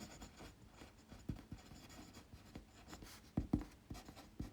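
Pencil writing on paper: soft, irregular scratching strokes with a few sharper ticks about three and a half seconds in and again near the end.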